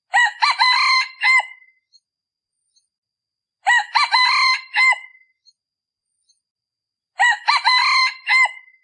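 Male decoy junglefowl crowing three times, about three and a half seconds apart, each crow a short run of clipped notes. It is the call used to lure wild junglefowl cocks into answering and coming close.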